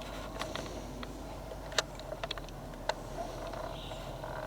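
Footsteps crunching on leaf litter and twigs on a forest trail: scattered sharp clicks and snaps, a couple of them louder, about two seconds and three seconds in.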